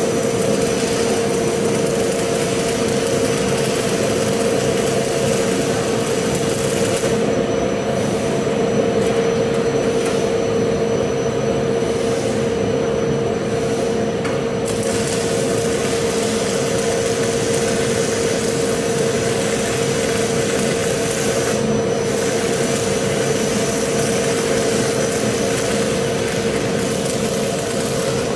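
AC-1000PH fume extractor's fan running steadily with a strong steady hum, under the crackle and hiss of electric arc welding. The welding crackle drops away for several seconds in the middle, leaving mainly the fan.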